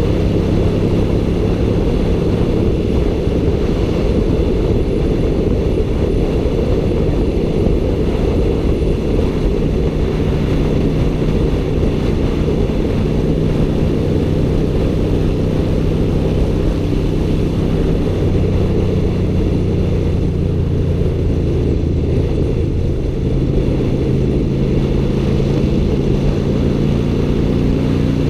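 Honda Shadow VT750's V-twin engine running under way on a ride, its note shifting a few times as the speed changes, under heavy wind rush on the microphone.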